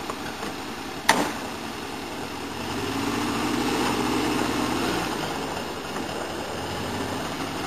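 Volvo Valp (Laplander) off-road truck's engine running steadily, growing louder for a couple of seconds near the middle as it works on the rocks. A sharp bang about a second in, when the cab door slams shut.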